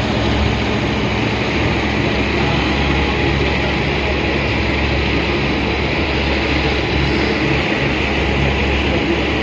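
Boat engine running steadily at cruising speed, a low droning hum under the rush of the churning wake water.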